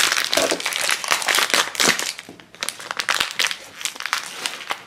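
Crinkly plastic wrapper being crumpled and peeled off a small plush toy by hand: a dense, irregular run of crackles that thins out about halfway through, then picks up again.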